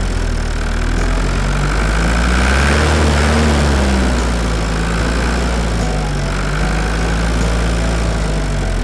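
Motor vehicle engine running at a steady low idle, its pitch rising slightly about three seconds in and settling back.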